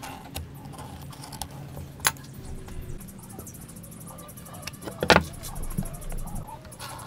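Hand tools and wooden blocks handled on a timber workbench: a few sharp clicks and knocks, the loudest a cluster of knocks about five seconds in, over a low steady hum in the background.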